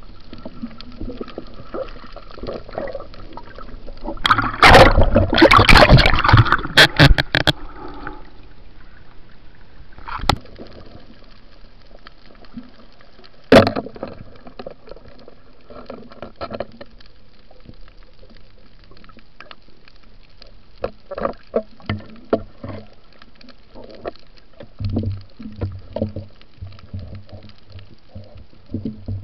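Water sloshing and gurgling around an underwater camera on a night spearfishing dive. A loud rush of splashing water runs from about four to eight seconds in, sharp single knocks come near ten and fourteen seconds, and smaller knocks follow near the end.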